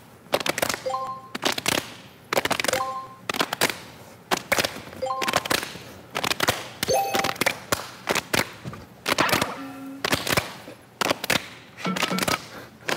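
Several people clapping hard in a fast, even rhythm, the claps coming in quick clusters, with short pitched sounds recurring about every two seconds.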